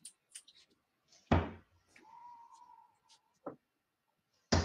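Darts striking a Winmau Blade 5 bristle dartboard: two heavy thuds about a second in and near the end, with a lighter tap a little before the second.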